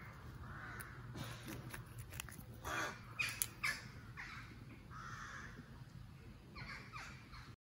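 Harsh bird calls repeating every second or so in woodland, with a few sharp clicks close by, the loudest about three seconds in.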